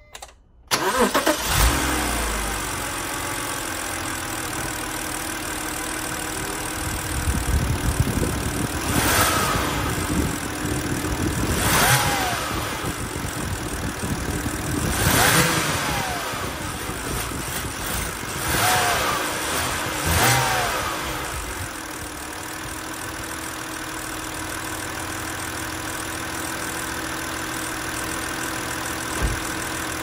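A 2006 BMW X3's petrol straight-six catches and starts in the first second, then idles. It is revved several times over the next twenty seconds before settling back to a steady idle. It runs without the cylinder-3 misfire now that a replacement ignition coil is fitted.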